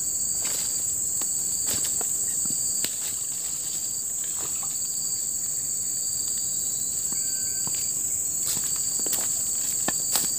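Steady high-pitched insect chorus from the surrounding forest, with scattered short clicks and rustles of movement on the bank.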